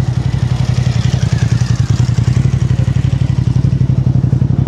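Motorcycle engine idling loudly with a steady, rapid, even pulsing beat.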